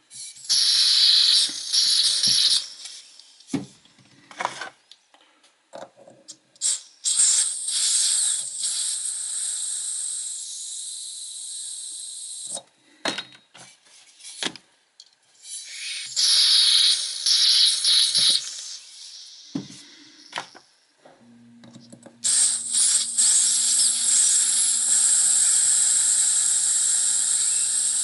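Gas hissing out of a butane lighter's filler valve in repeated bursts, some about a second long and others several seconds, with small metal clicks between them; a long steady hiss starts about three-quarters of the way through. It is air being bled out of the lighter's large tank while it is filled with butane, and the tank is not yet full.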